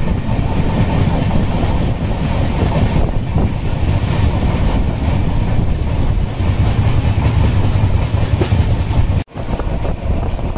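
Express passenger train running at speed, heard from aboard: a steady rumble of wheels on rail with clickety-clack over the joints. The sound drops out for an instant about nine seconds in, then resumes.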